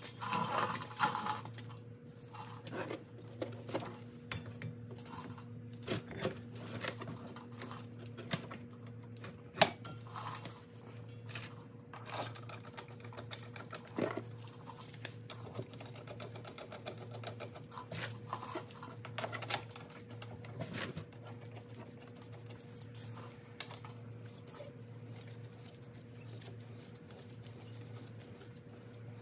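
Scattered light clicks and knocks as a Porsche Macan GTS front brake caliper and its pads are handled and fitted back over a new brake rotor, over a steady low hum.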